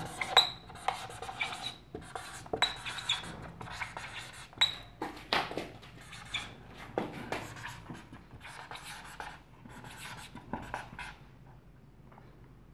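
Whiteboard marker writing on a whiteboard: a run of quick, irregular rubbing strokes with short high squeaks as the letters are formed, thinning out near the end.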